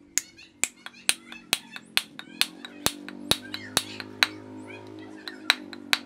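A hammer knocking a glued wooden wedge into the split top of a wooden mallet's handle to lock the head on. There are sharp knocks about two a second, a short run of softer taps about two-thirds of the way through, then two more hard blows.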